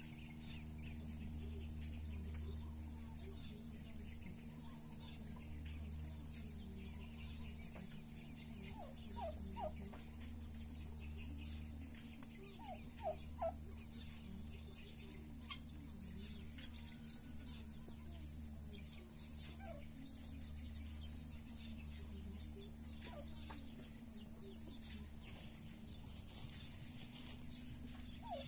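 Turkeys calling a few short times, loudest about nine and thirteen seconds in, over a low steady rumble.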